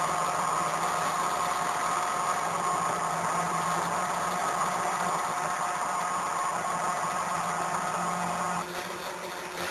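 Stepper motors of a hot-wire CNC foam cutter running with a steady, multi-tone whine and hum. The whine drops away near the end, leaving a quieter hum.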